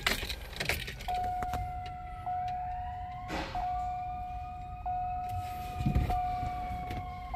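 Truck's warning chime sounding as the ignition is switched on: one steady mid-pitched tone, broken briefly about every 1.2 s, warning that a door is open. A few clicks come from the key just before it starts, and a fainter rising whine sits underneath.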